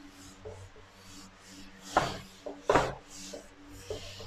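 Whiteboard eraser wiping across a whiteboard in a series of short rubbing strokes, the two loudest about two seconds in and again a moment later.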